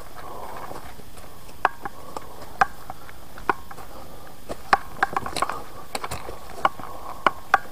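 Irregular sharp clicks and knocks from hiking over a forest trail, about a dozen spread unevenly, over a faint steady hiss.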